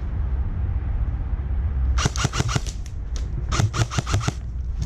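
HPA-powered airsoft guns firing in two quick bursts of rapid sharp clicks, about ten shots a second, starting about two seconds in. A steady low rumble runs underneath.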